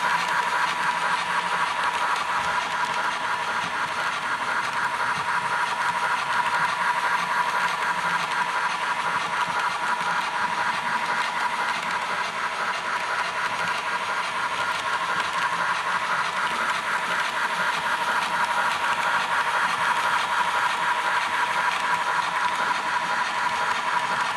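Train sound running on: a steady hiss and a high whine with a fast, even clatter.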